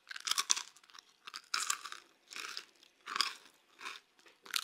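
A person chewing food close to the microphone, with regular chews at about three every two seconds.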